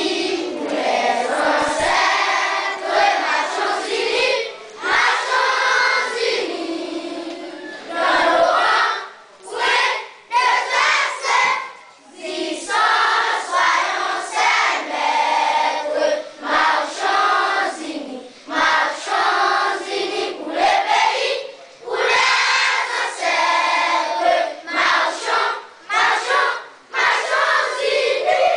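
A large group of children singing together in unison, in short phrases with brief pauses between them.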